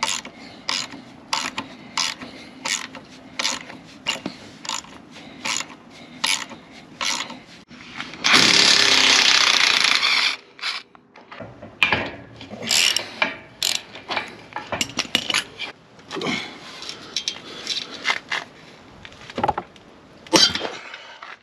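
Socket ratchet wrench clicking about twice a second as it undoes a castellated nut on a caravan axle. About eight seconds in, a loud rushing noise lasts about two seconds, then uneven clicks and metal knocks follow.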